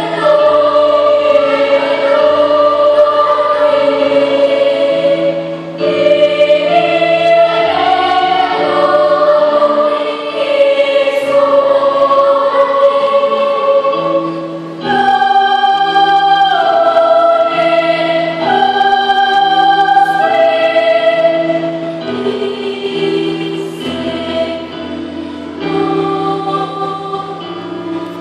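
Children's choir singing a sacred song, held notes moving in steps, a little softer near the end.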